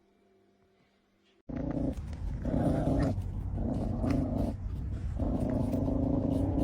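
A dog growling in long, low bouts with short breaks between them, starting abruptly about a second and a half in after near silence.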